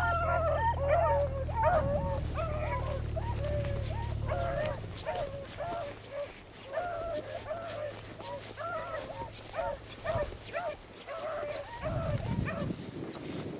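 Beagles baying on a rabbit's trail: a steady run of short, pitched bays, a couple a second, all through. A low steady hum underneath cuts off about four and a half seconds in.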